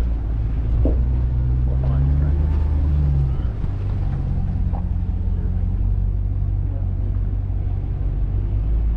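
Off-road vehicle engine running at low trail speed over a rough dirt and rock track. The engine note changes and settles lower about three and a half seconds in, with a few short knocks from the rough ground.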